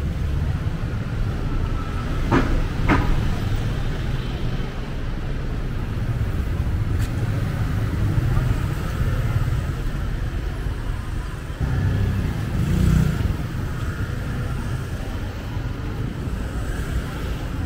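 Steady rumble of road traffic, with two sharp clicks about two and a half seconds in and a louder low swell of passing vehicle noise around two-thirds of the way through.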